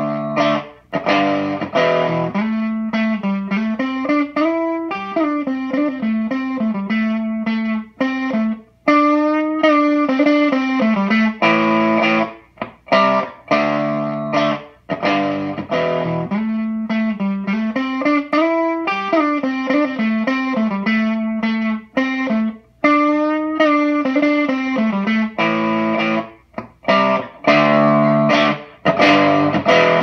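A looped electric-guitar riff from a Stratocaster through a Cicada Fuzz pedal (a Scarab Deluxe clone) into a Peavey Classic 30's clean channel, repeating about every 14 seconds. Choppy fuzzed chords alternate with a single-note line with pitch bends, while the pedal's knobs are turned.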